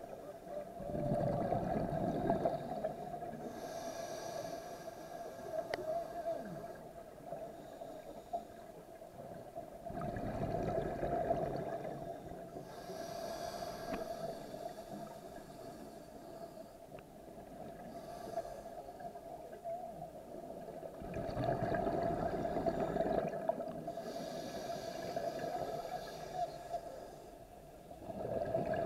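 Scuba diver breathing through a regulator underwater: three slow breaths, each a drawn-in rush followed a few seconds later by the fizzing of exhaled bubbles. A steady hum runs underneath.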